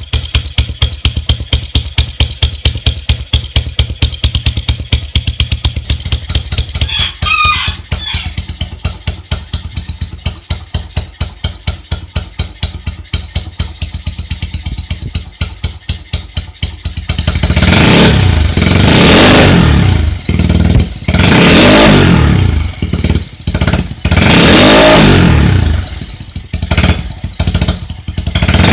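Honda Mega Pro single-cylinder four-stroke motorcycle engine running through a modified aftermarket exhaust (knalpot): it idles with even, steady exhaust pulses, then from a little past halfway it is revved several times, each rev rising and falling over about two seconds, with short throttle blips between.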